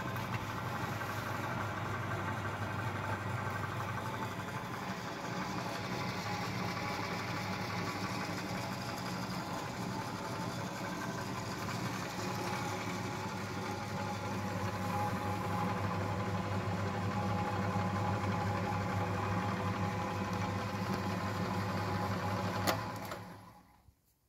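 Progress ball-bearing pillar drill running with no load: its electric motor and V-belt pulleys give a steady mechanical hum. Near the end a click, then the sound dies away as the machine runs down.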